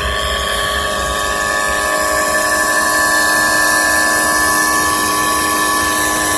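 Motor running with a bad bearing: a steady whine of several held tones over a loud hiss.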